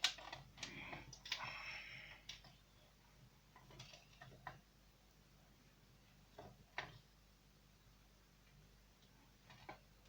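Faint, irregular clicks and light knocks over near silence, with a little rustling in the first couple of seconds, as a homemade wind-speed sensor built from a computer cooling fan is handled and tested.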